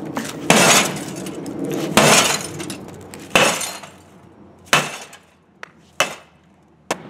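Metal baseball bat smashing the lower front panel of a Sony rear-projection TV. About six blows land roughly a second apart. The first three each bring a longer crash of breaking pieces, and the later ones are short, sharp knocks.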